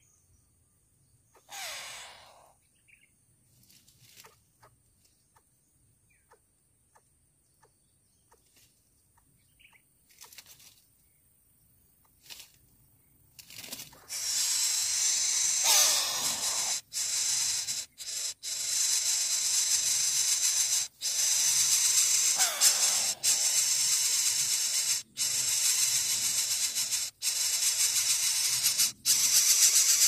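Coucal nestlings hissing loudly, like a snake, from about halfway through, in long stretches with short breaks. Before that, mostly quiet, with a short falling call about two seconds in.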